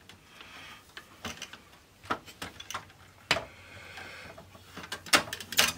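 Scattered plastic clicks and knocks from the drive and laser deck of a Technics 5-disc CD changer being worked loose from its retaining clips by hand, with faint scraping between them. A quick run of louder clicks comes near the end.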